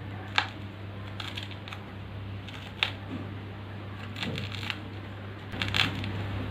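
Close-miked eating sounds: a few short sharp clicks and smacks, with one about half a second in, one near the middle and a cluster in the second half, over a steady low hum.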